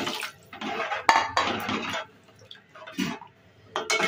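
Water poured from a jug into a metal pot of kadhi, then a metal ladle stirring and scraping against the pot in short spells, with a sharp clink about a second in.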